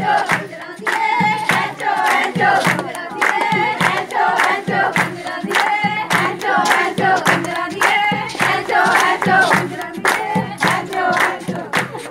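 A group of women singing a Punjabi folk song together, with hand-clapping keeping a steady beat.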